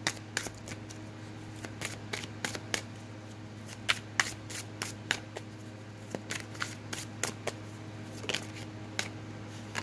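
A Game of Thrones tarot deck being shuffled hand to hand, the cards giving irregular sharp slaps and clicks a few times a second, over a steady low hum.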